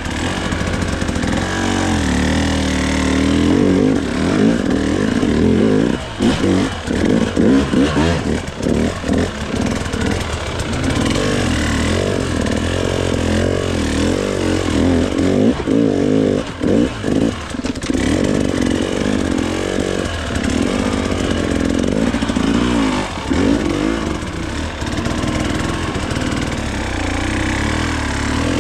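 Gas Gas hard enduro dirt bike engine revving up and down as the throttle is worked on and off, with frequent short blips and dips in revs while climbing through slippery rocks at low speed.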